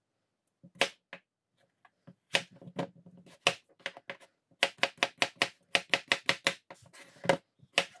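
A quick, irregular run of sharp knocks or taps on something hard, picking up to about five a second in the middle, then thinning out.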